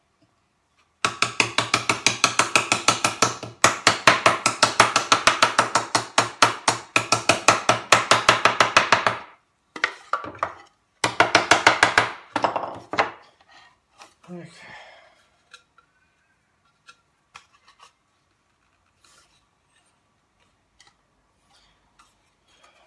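Small hand-held power tool working wood: a fast, even rattle of strokes, in a run of about eight seconds and, after a short pause, another of about two seconds. A few faint knocks from handling the workpiece follow.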